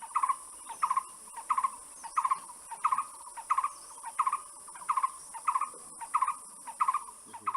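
A bird calling one short note over and over, evenly spaced about one and a half times a second, over a steady high hiss.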